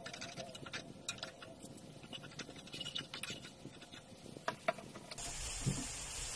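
Chili, garlic and shallot paste with shrimp paste frying in oil in a pan, crackling and spitting while a spatula scrapes it around. About five seconds in it gives way to a louder, steady sizzling hiss.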